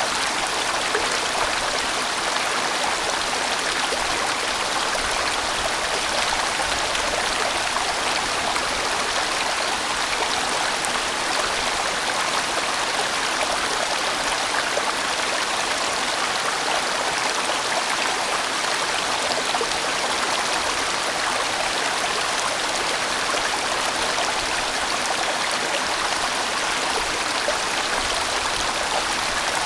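A large, winding valley stream flowing, a steady, even rush of water.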